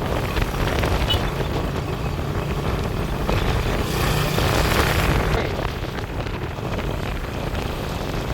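Motorbike riding along a road: steady engine and road rumble with wind on the microphone.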